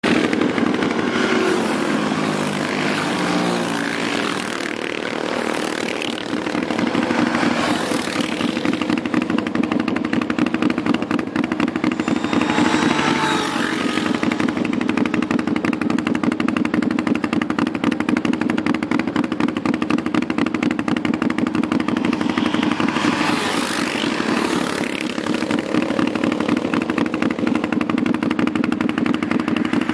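Sport quad (ATV) engines: several quads ride past with changing engine pitch in the first seconds, with more engine swells around twelve and twenty-four seconds in, over a steady, evenly pulsing engine drone.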